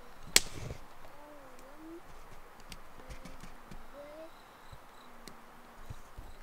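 Wood campfire crackling, with one sharp loud pop about a third of a second in and a few lighter ticks after. Faint low wavering calls come and go in the background.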